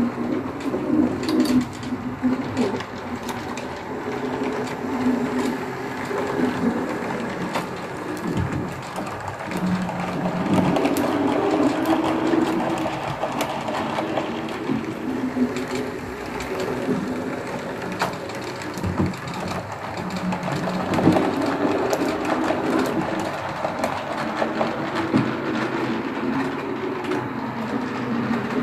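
HO-scale model train running on the layout: a steady electric motor hum that rises and falls, with wheels clicking over the rail joints.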